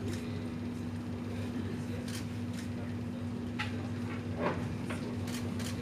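Steady low mechanical hum, with a few scattered clicks and knocks.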